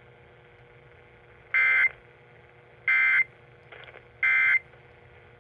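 Emergency Alert System end-of-message signal: three short, buzzy bursts of two-tone digital data, about a second and a half apart. They mark the end of the tornado warning alert.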